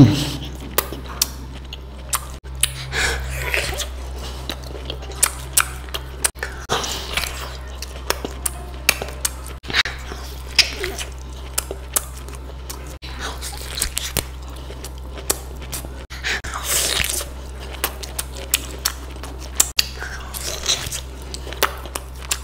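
A person eating close to the microphone: irregular chewing, biting and crunching with sharp clicks and wet mouth noises, over a steady low hum.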